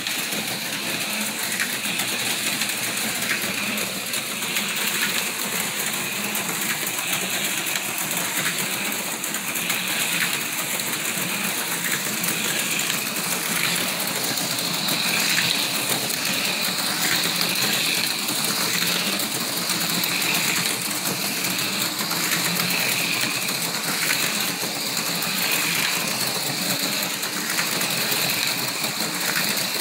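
Four HO-scale slot cars running laps of an oval track at about half throttle: a steady high whine of their small electric motors and gears, with a constant fine rattle of the cars running in the track slots.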